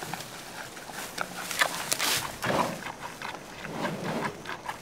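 Giant panda chewing bamboo: irregular crunching and snapping with rustling leaves.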